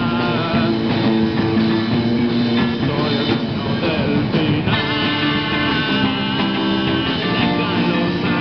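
Live rock band playing electric guitars through amplifiers over a drum kit, loud and steady; the guitar part changes a little past the middle.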